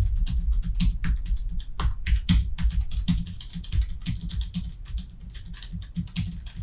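Typing on a Keychron K1 keyboard's low-profile mechanical switches: a fast, uneven run of key clicks, quieter in the second half. Faint background music underneath.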